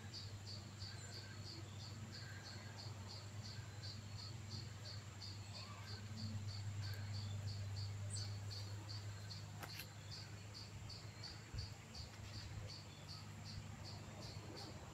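A cricket chirping in an even rhythm, about three short high chirps a second, over a thin steady high-pitched whine and a low continuous rumble.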